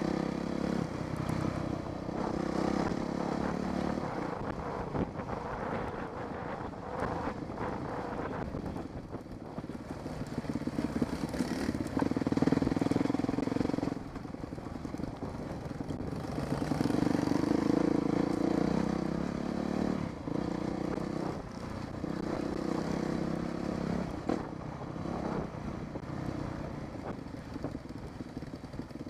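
Dirt bike engine running under changing throttle on a rough trail, its note swelling and easing as the rider accelerates and backs off.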